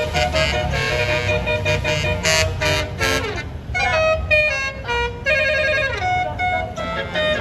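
Tour bus 'telolet basuri' melodic horn playing a tune of held notes that change pitch in steps, with falling slides twice in the second half, over a bus engine running.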